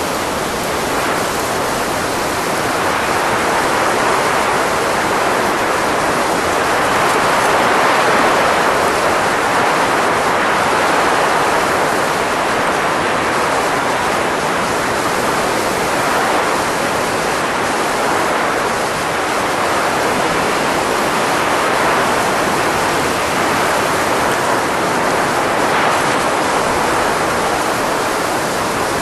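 Blowing sound effect: a steady rushing of air-like noise with slow, gentle swells and no tone.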